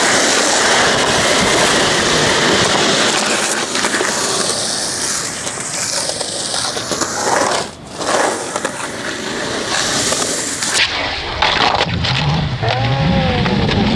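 Skateboard wheels rolling over concrete: a loud, continuous rough rolling noise with a few sharp clacks of the board. The noise dips briefly about halfway through and changes character a few seconds before the end.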